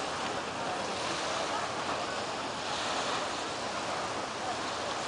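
Steady wash of gentle surf at the shoreline, with a beach crowd chattering faintly.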